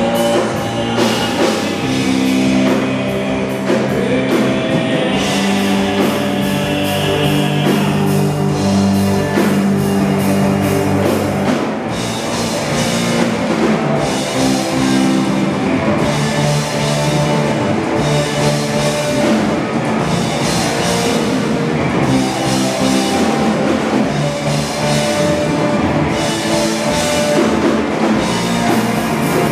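Live rock band playing loud: electric guitars holding sustained chords over a drum kit with steady drum and cymbal hits, the drumming growing busier about twelve seconds in.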